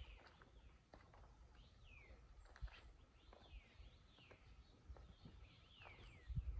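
Faint forest bird calls: short, quick chirps sliding downward in pitch, repeated every half second or so, with a few faint taps.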